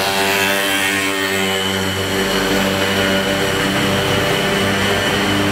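A motor vehicle's engine running steadily, a loud, even hum at a constant pitch.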